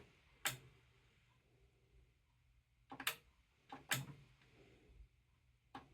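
A handful of sharp, isolated clicks, about four, from handling the controls of a Sony STR-DE545 receiver that stays in protect mode.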